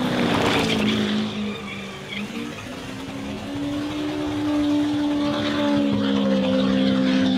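Car engine revving hard at high rpm in a burnout, its pitch sagging about two seconds in, then climbing back and holding.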